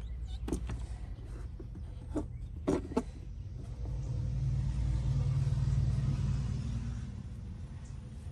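A few light clicks and knocks, then a passing motor vehicle: a low rumble that swells for a few seconds and fades away.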